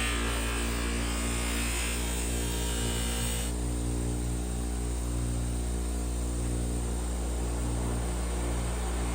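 An electric power tool motor running steadily, with a hissing, grinding noise over it that stops about three and a half seconds in.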